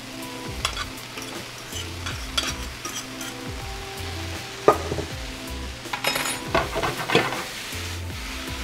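Black beans, vegetables and day-old rice sizzling in a skillet as the rice is tipped in from a saucepan, with scrapes and clinks of the pans. The skillet is tossed near the end.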